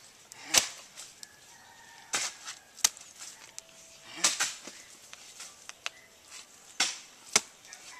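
A hoe chopping repeatedly into a heap of moist red earth being broken up and turned for a mud wall. About six short, gritty strikes come at uneven intervals.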